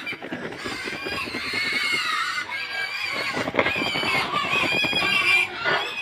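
A pen of pigs squealing over and over at feeding time, many shrill, wavering squeals overlapping, clamouring for feed.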